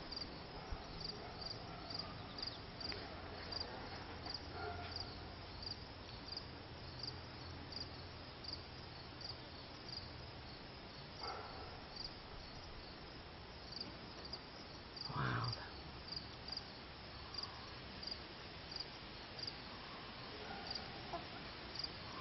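Crickets chirping in a steady, evenly spaced rhythm on a summer evening, with a brief bump about fifteen seconds in.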